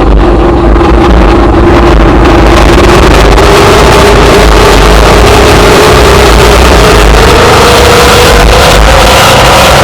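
Very loud, distorted droning noise like a motor, with one steady hum that slowly rises in pitch.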